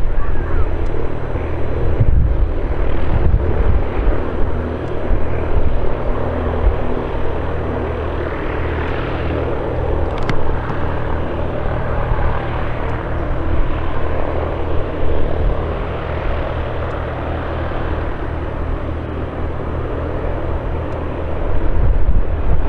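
Aircraft engine noise: a steady low drone under a broad hiss.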